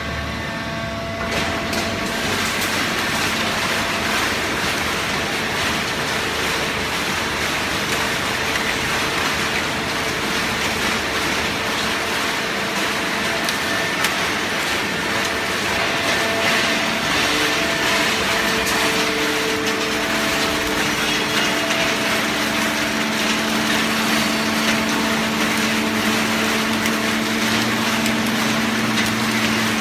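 Hydraulic cardboard baler running: a steady motor and pump hum under a broad mechanical noise, the hum changing pitch about two-thirds of the way through.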